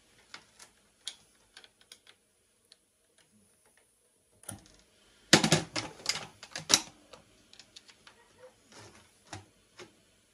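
Screwdriver clicking and scraping against the metal works of an Elna sewing machine being taken apart. Scattered light clicks, with a burst of louder metallic clattering about halfway through.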